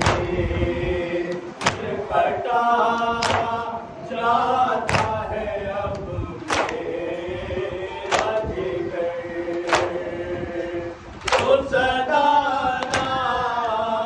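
Men chanting a nauha, the Urdu lament for Muharram, led by a reciter at a microphone with the group singing along. In time with it come sharp unison strikes of open hands on chests (matam), about one every second and a half.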